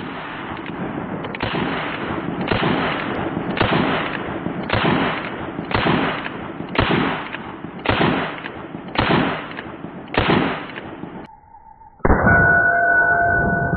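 A Smith & Wesson Model 617 .22 LR revolver firing about ten shots in a row, roughly one a second. Near the end, after a short gap, a steady noise with a held high tone takes over.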